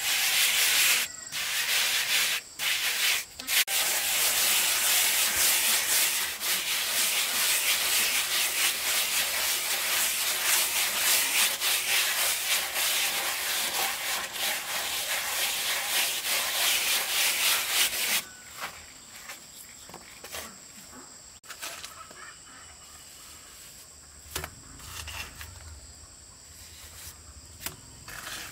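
Steady, rough rubbing and scraping of a tool across a hard surface, close by, with a few brief pauses near the start; it stops about two-thirds of the way in. A faint high cricket-like trill carries on behind it and is left on its own afterwards.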